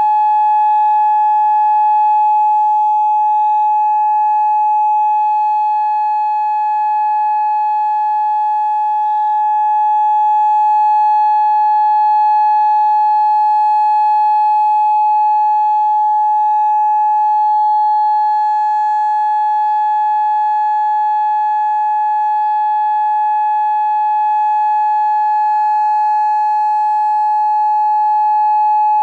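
Federal Signal Modulator 6024B electronic outdoor warning siren sounding its steady alert signal during a full test: one loud, unwavering tone with overtones, no rise or fall in pitch.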